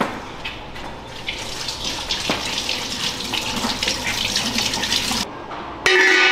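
Kitchen faucet running steadily into the sink while hands are washed under it. It cuts off about five seconds in, and a louder sound starts just before the end.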